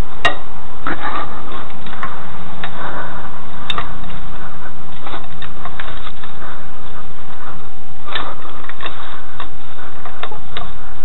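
Irregular metallic clicks and knocks of a wrench being worked on a car's alloy-wheel lug nuts, in clusters, over a steady hiss with a faint constant whine.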